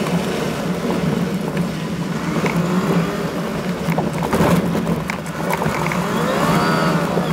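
Toyota Land Cruiser engine droning steadily on a rough dirt track, heard from inside the cab with tyre and road noise. A cluster of knocks and rattles from bumps comes about four seconds in. Near the end the engine note rises and falls as the truck climbs a slope.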